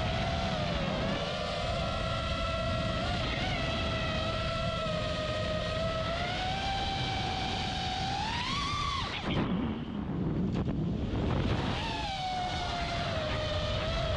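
Five-inch FPV freestyle quadcopter's brushless motors (Lumenier 2206 2450kv) and three-blade props whining in flight, the pitch shifting with throttle. About two thirds through, the whine rises and then drops away sharply as the throttle is cut, picking up again a couple of seconds later. A low wind rumble runs underneath on the onboard microphone.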